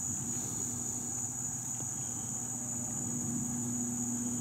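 A steady, high-pitched chorus of night insects such as crickets, with a faint low steady hum underneath.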